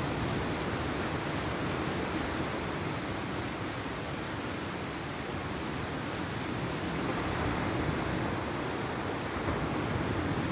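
Sea surf breaking on the beach, a steady rushing noise with no separate breaks standing out.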